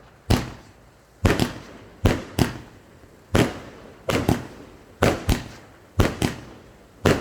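Consumer fireworks battery (Funke cake) firing shot after shot. Sharp bangs come roughly twice a second, several in close pairs, each dying away quickly.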